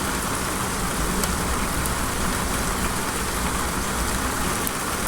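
Steady rain falling on a surface, an even hiss with scattered drop ticks.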